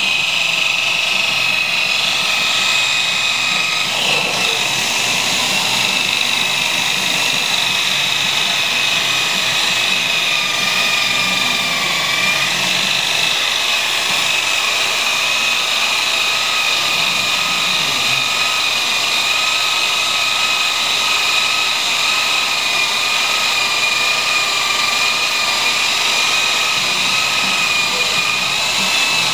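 Electric rotary polisher with a buffing pad running steadily against the aluminium side of a flatbed deck, a high whine with a few steady tones. Its pitch dips briefly near the middle.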